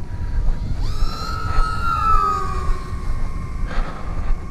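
Electric motor and propeller of an RC foam delta wing whining; the pitch jumps up about a second in, then slides slowly down. Wind rumbles on the microphone underneath.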